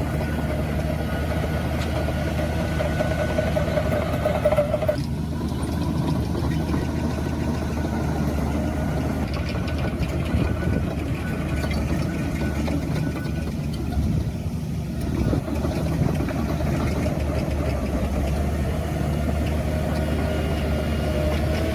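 Diesel engines of heavy earthmoving machinery running steadily. A higher steady tone in the engine sound stops sharply about five seconds in.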